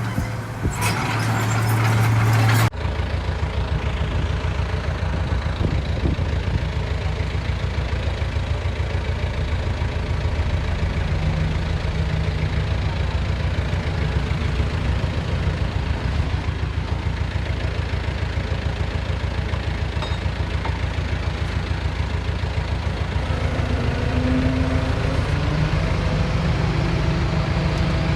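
Heavy diesel engine of earthmoving machinery running with a steady low throb. The sound changes abruptly about three seconds in, from a louder, brighter engine sound to the steadier, lower one.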